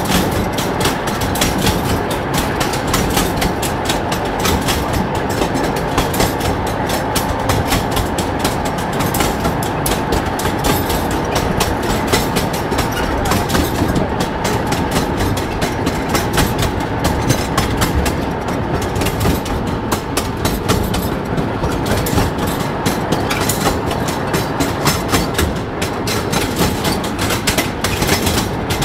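Railway draisine (rail motor trolley) running along the track, its wheels clattering steadily over the rails.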